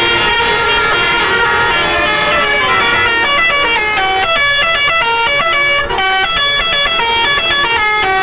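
Tour bus 'basuri' telolet horn playing a melody: several steady horn tones sounding together and stepping from note to note. From about three seconds in the notes turn short and quick, changing several times a second.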